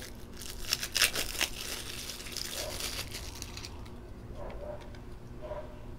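Crinkling and rustling as a roll of PVC electrical tape is handled and unwound, lasting about three and a half seconds before it dies down.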